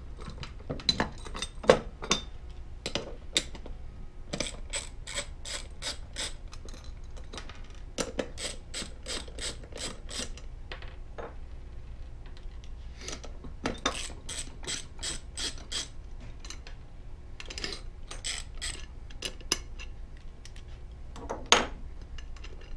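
Socket ratchet clicking in runs of quick, even clicks, about three a second, as it backs out the bonnet cap screws of a gas pressure regulator. A few louder metallic knocks come in between the runs.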